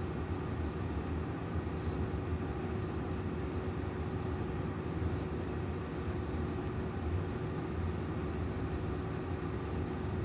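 Steady low rumble of background noise with a faint constant hum; nothing starts or stops.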